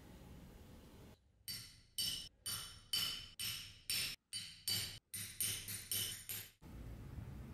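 A pricking iron struck by a hammer, punching stitching holes through thick leather: about a dozen sharp, ringing metallic strikes, roughly two a second.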